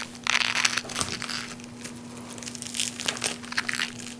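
A teaspoon scraping the hairy choke out of a halved globe artichoke: a run of short rasping scrapes, heaviest in the first second, with a few more around three seconds in.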